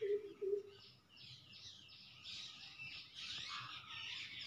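Faint chirping of several small birds, quick high chirps that grow busier after the first second or so, with a few short low notes at the very start.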